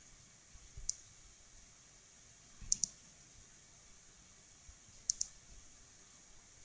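Computer mouse clicking: a single click about a second in, then two quick pairs of clicks, one near three seconds in and one near five.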